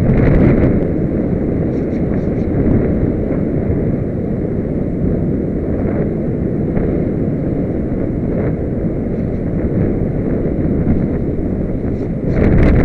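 Air rushing over the onboard camera's microphone on a Solius RC glider flying low, a steady deep buffeting with a few faint clicks, swelling louder near the end as the plane comes down toward the grass.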